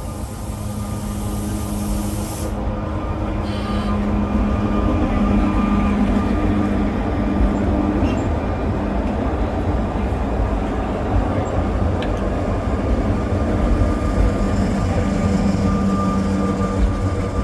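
Sóller electric tram running on its rails, a steady rumble with a hum that grows louder over the first few seconds, with a hiss in the first two seconds or so.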